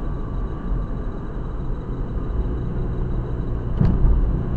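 Steady road and engine rumble of a car driving along, heard from inside the cabin, with one short knock near the end.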